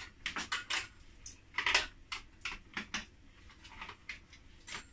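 A string of irregular plastic and metal clicks and taps from a white electric hand mixer being handled and its metal beaters fitted and knocked into place; the motor is not running.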